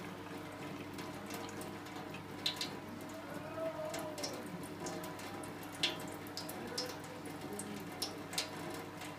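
Thin stream of water from a washing machine's drain hose splashing into a stainless steel sink as the machine pumps out, with sharp drip-like ticks every second or so.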